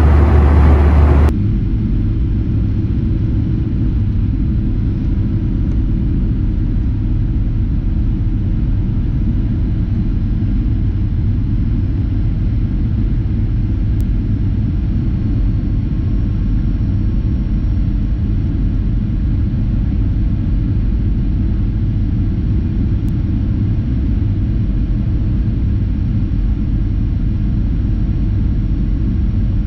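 Steady low rumble of a Boeing 737-800 in flight, from its CFM56-7B jet engines and the airflow, heard inside the cabin by the wing. A louder hum cuts off abruptly about a second in.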